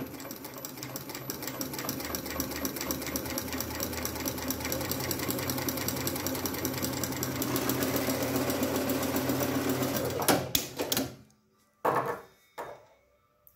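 Dürkopp Adler 272 industrial lockstitch sewing machine stitching through a 3–4 mm thick leather belt with nylon thread: a fast, even run of stitches that grows slightly louder for about ten seconds. It then stops, with a few sharp clicks.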